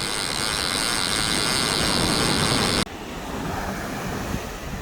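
Surf washing on the shore with wind on the microphone, a steady hiss. The hiss drops abruptly nearly three seconds in.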